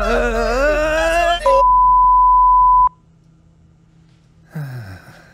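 A rabbit character's wavering cry of pain is cut off about a second and a half in by a steady, high censor-style bleep tone. The tone stops abruptly near the three-second mark, and a short low sound falling in pitch follows near the end.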